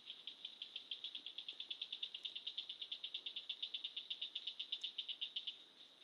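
An insect calling in a high, rapid pulsing trill of about ten pulses a second, which stops shortly before the end, over a steady high drone of other insects singing.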